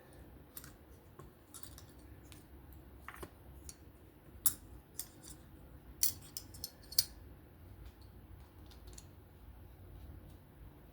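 Small metal clicks and taps of a titanium folding knife being taken apart, a screw being backed out with a driver and the parts handled. The clicks come irregularly, with a cluster of sharper ones midway through.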